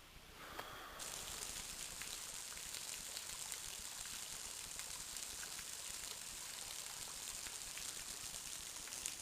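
Waterfall: a steady rush of falling water that comes in abruptly about a second in.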